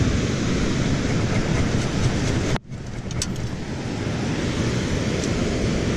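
Steady wind buffeting the microphone over the rush of surf, dropping out abruptly for a moment about two and a half seconds in.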